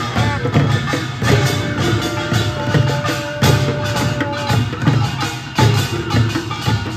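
Korean pungmul procession band playing: small hand drums beaten to a steady marching beat, with a taepyeongso horn holding one long note for a few seconds in the middle.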